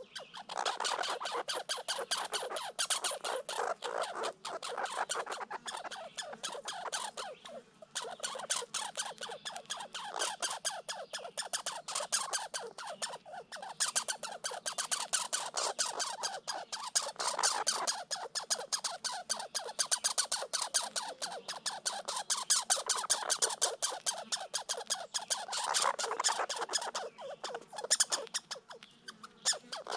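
Red squirrels chattering: a rapid, harsh rattle of many notes a second, kept up almost without a break, the squirrels' territorial call in a dispute over food.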